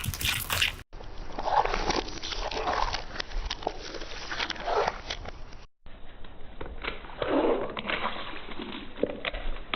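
Crisp food crunching and crackling: many short, sharp cracks in quick irregular succession, broken by two abrupt cuts.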